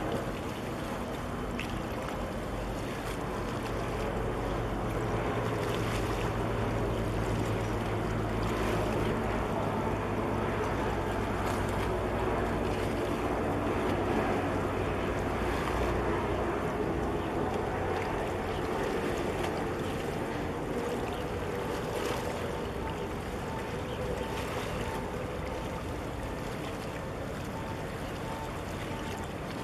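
Low steady engine hum of a passing ship over water washing and wind buffeting the microphone. The hum weakens about halfway through.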